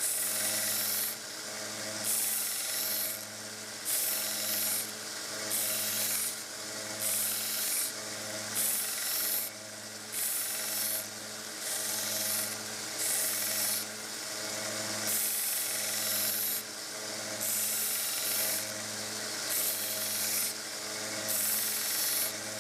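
A 1x30 belt sander running with a 120-grit belt, its motor humming steadily while the steel side of a ratchet head is pressed to the belt in repeated passes, a rasping grind rising with each contact about every second and a half.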